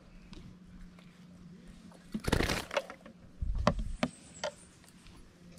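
Landing net and fish being handled on a kayak deck: a short burst of thrashing and rustling about two seconds in as the peacock bass flaps in the rubber-mesh net, then a few knocks and clicks of the net frame against the hull.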